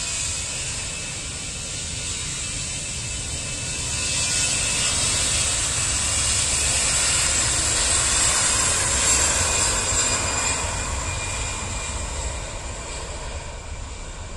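Citilink Airbus A320's twin jet engines at full takeoff power during the takeoff roll: a loud roar with a high whine that swells about four seconds in, peaks, then fades near the end as the airliner speeds away down the runway.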